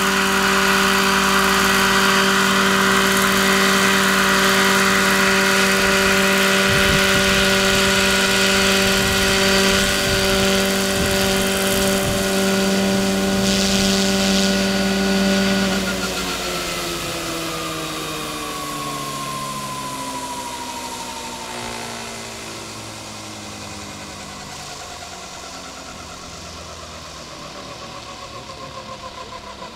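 Electric RC scale model helicopter (Lockheed XH-51N, 2 m rotor) running at a steady pitch, a hum of the rotors with an electric motor whine. About halfway through, all its tones begin falling together and the sound fades as the motor and rotors spool down after landing.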